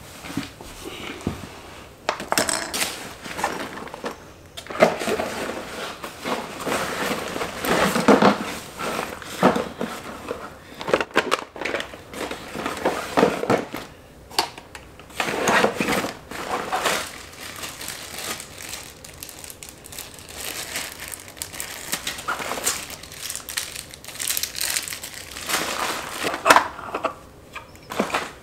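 Plastic art-supply boxes and a palette clattering, rattling and rustling as they are handled and packed into a backpack, in uneven bursts.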